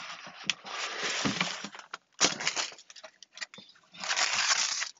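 Plastic-wrapped amenity kits rustling and crinkling as they are handled and put into a wooden box. There is a sharp knock about two seconds in, the loudest moment, then a short run of light knocks and another burst of crinkling near the end.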